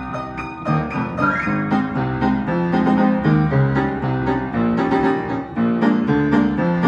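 Piano playing a march, with bass notes alternating under chords at a brisk pace.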